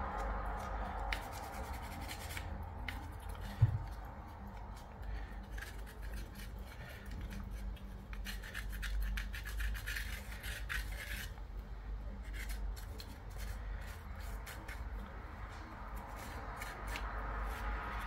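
Irregular rubbing and scratching as a metal detector part is scrubbed clean of grease residue with cleaning fluid, with a single thump about three and a half seconds in.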